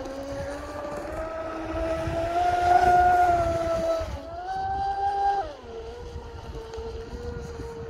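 Electric RC speedboat with a TP Power 4060 brushless motor running fast across the water: a high motor-and-prop whine that rises and falls with the throttle, loudest about three seconds in, over the hiss of spray. After about five and a half seconds the whine drops to a steadier, lower pitch as the boat eases off.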